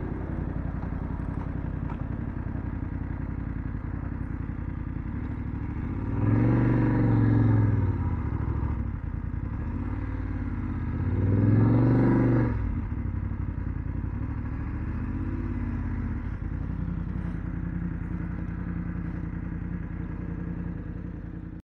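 BMW F750GS's parallel-twin engine running under way, swelling in pitch and loudness twice, about six and eleven seconds in, then stopping abruptly near the end.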